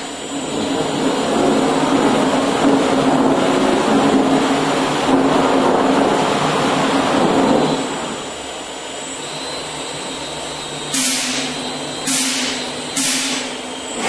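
Automatic brush satin-finishing machine running: a steady mechanical whir with a low hum, louder for the first eight seconds and then easing off. Near the end come three short, sharp hisses, one after another about a second apart.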